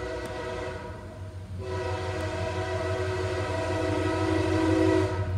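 MARC commuter train locomotive's multi-chime air horn blowing two blasts, a short break about a second in, the second blast longer and growing louder as the train approaches, over the low rumble of the train.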